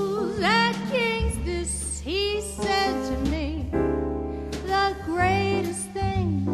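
Jazz ballad: a woman singing with sliding, bending notes over keyboard, upright bass and drums.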